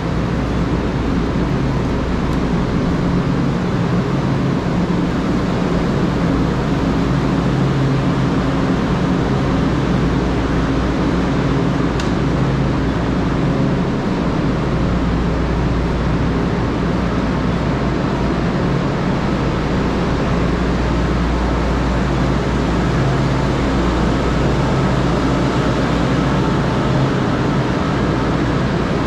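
Steady road noise from riding a bicycle on wet streets in the rain, with traffic around: a continuous hiss over a low rumble and a faint hum.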